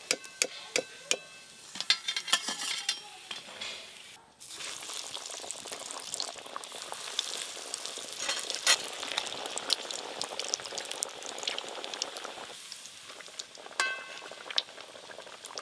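Breadcrumbed chicken cutlets deep-frying in hot oil in a wok, sizzling and crackling steadily. A steel slotted ladle clinks against the wok and plate several times in the first few seconds and again near the end.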